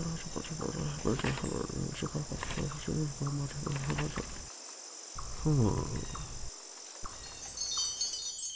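Crickets chirping in a steady, continuous trill, with short low pulsing sounds through the first half and a falling pitched sweep about five and a half seconds in.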